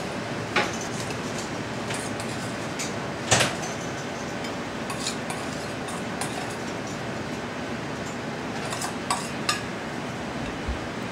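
A metal utensil clinking and scraping against a stainless steel mixing bowl as a salad is tossed and served onto a plate: a few sharp clinks, the loudest about three seconds in and a couple more near the end, over steady background noise.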